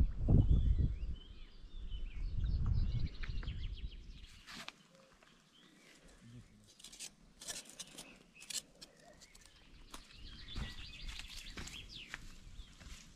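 Songbirds chirping and singing, with low rumbles in the first few seconds and several sharp clicks near the middle.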